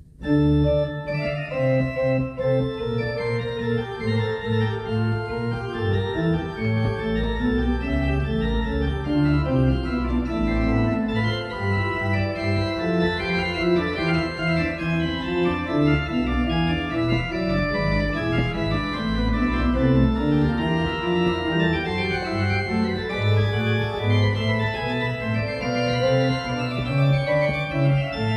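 Pipe organ playing, starting suddenly a moment in: sustained chords on the manuals over low bass notes, continuing steadily.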